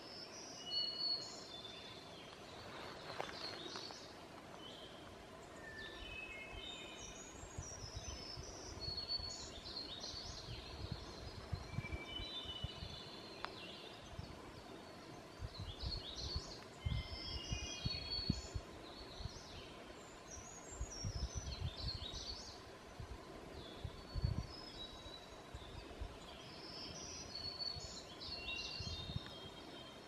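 Several woodland songbirds singing, their short whistled phrases and runs of notes overlapping and repeating. Uneven low thumps and rumbles come and go from about a quarter of the way in.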